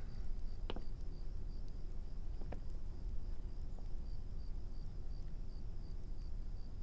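Crickets chirping steadily in a high, evenly pulsing trill about three times a second, over a low background hum, with two faint clicks about a second and two and a half seconds in.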